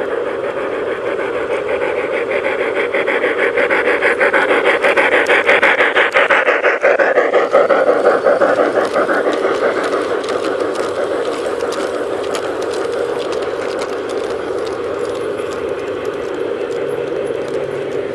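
A G-scale model freight train of open wagons rolling past close by: the steady rasping rumble of small wheels on the rails, with rapid fine clicking, swelling for a few seconds as the wagons pass and then easing.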